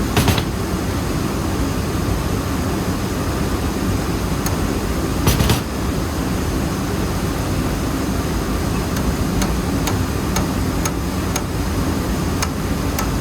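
Steady, loud running noise of rice mill machinery. A few sharp metallic knocks stand out from it: one just at the start, the loudest about five seconds in, and light ticks near the end.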